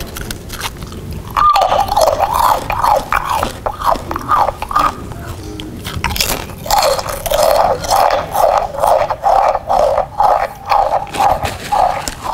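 Chewing and crunching amplified through a handheld megaphone, sounding loud and tinny in rapid, uneven bursts. It starts about a second and a half in, pauses briefly around the middle, then resumes.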